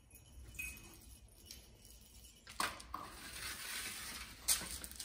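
Metal baking sheet handled on a stone countertop: a clank about halfway through, a scraping slide, and another sharp clank near the end.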